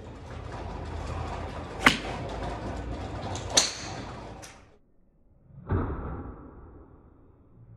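Driving-range sound: a steady rushing haze with sharp cracks of golf balls being struck, the loudest about two seconds in and again near four seconds. After a short gap, a duller thump that fades out.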